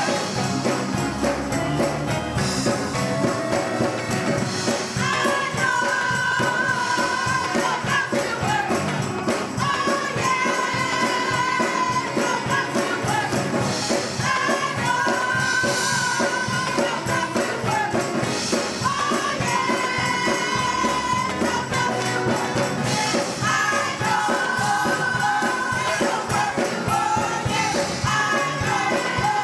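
Gospel choir singing with instrumental accompaniment and a steady tambourine-like rhythm, in sung phrases a few seconds long.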